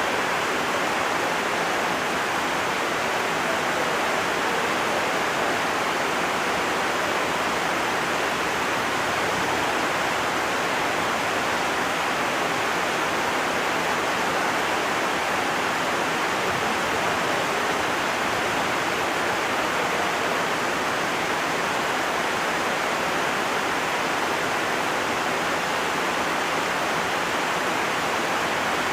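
Heavy rain pouring down, a dense, even hiss.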